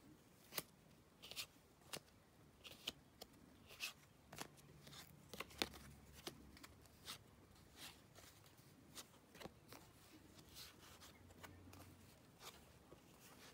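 Faint handling of cardboard 1975 Topps baseball cards: a string of light, irregular clicks and taps as the cards are picked up and laid down.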